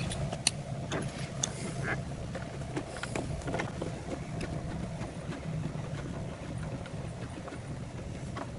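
Light metal clicks as the intake manifold bolts are handled and started by hand into the outboard, scattered over the first few seconds, over a steady low hum.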